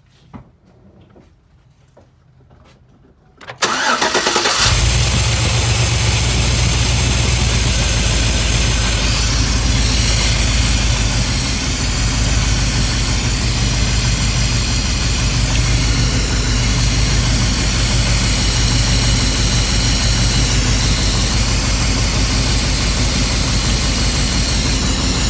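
A few faint clicks, then about three and a half seconds in a 2007 GM 5.3 L LS V8 cranks and starts, settling into a steady idle. The engine is being listened to for lifter tick, which the owner puts down to two bad new lifters fitted during a DOD delete.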